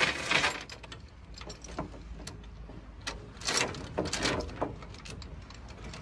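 Steel tie-down chain rattling and clinking as it is handled and wrapped around a backhoe frame, in a string of short clattering bursts after a louder rattle at the start.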